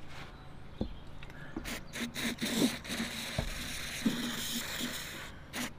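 Aerosol can of carb cleaner spraying: a steady hiss of about four seconds that cuts off, then a short second burst near the end. A few light knocks of handling come before it.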